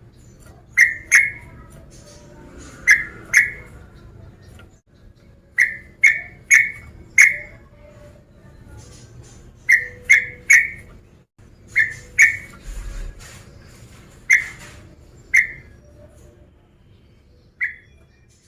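Sooty-headed bulbul (trucuk) calling: short, clear whistled notes in quick groups of two to four, with pauses of a second or two between groups. A faint low hum runs underneath.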